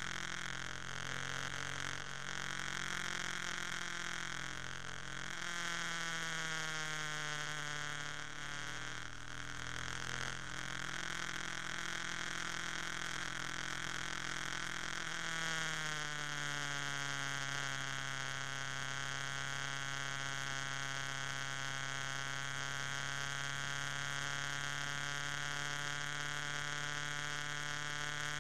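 Ducati 998's L-twin engine heard from onboard while riding. The revs rise and fall several times through the first half, drop about halfway through, then hold at a steady pitch for the rest.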